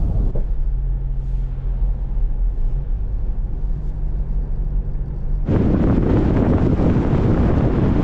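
A low engine hum with a steady drone that steps up in pitch about three seconds in. About five and a half seconds in it switches abruptly to loud wind rushing over the microphone.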